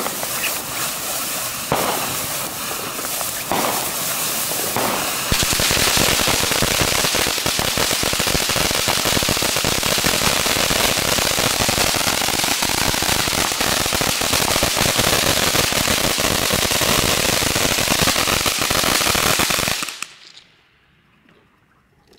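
Fox Fireworks 'Voltage' ground fountain firing: a noisy spray with separate sharp crackling strikes for about five seconds, then a dense, continuous crackle. It burns out and stops abruptly about twenty seconds in.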